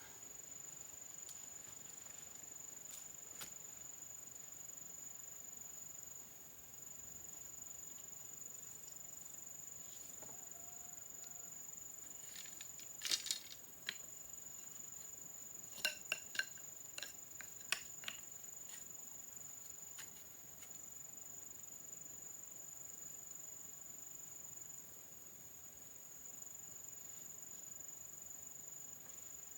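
Insects droning at one steady high pitch, with a few sharp metallic clinks near the middle: a quick cluster, then several more a few seconds later.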